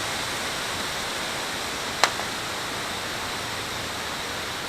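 Steady rushing of gusty wind through the trees in the storm's outer bands, with one brief click about two seconds in.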